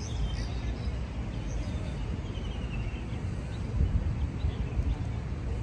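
Outdoor ambience of birds chirping over a low rumble, with a short falling run of chirps near the middle.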